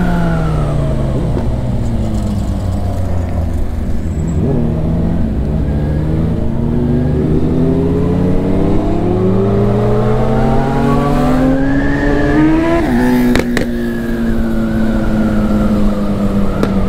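Yamaha XJ6's 600 cc inline-four engine running under way: its pitch falls about a second in, then climbs steadily for several seconds as the bike accelerates, drops suddenly about three-quarters of the way through and settles to a steady pitch.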